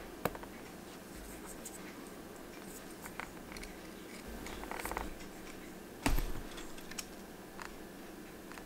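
Small steel watchmaker's hand tools being handled up close: a few sharp clicks, some light scraping, and a short metallic clatter about six seconds in.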